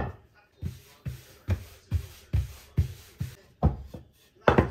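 Wooden rolling pin being pushed back and forth over dough on a stone countertop, each stroke giving a low thump, about two to three a second.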